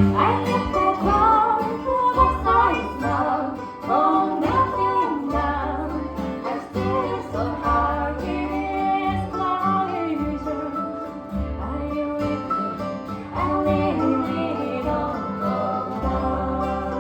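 Acoustic bluegrass band playing live: guitar and banjo with a melodic lead line sliding in pitch over them.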